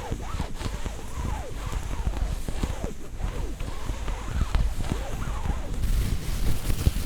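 Close-miked ASMR scratching and rubbing on textured objects: scratchy clicks with short squeaks that slide up and down in pitch, over a low handling rumble.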